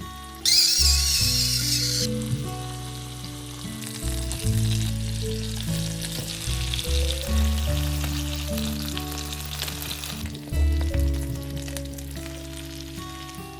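Instrumental music with a loud hiss over it. The hiss comes in suddenly about half a second in and drops away after about two seconds, then returns fainter for several seconds in the middle.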